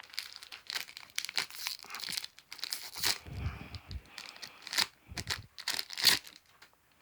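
Plastic wrapper of a trading-card booster pack being torn open and crinkled in the hands: a run of rustles and crackles with several sharper tearing strokes.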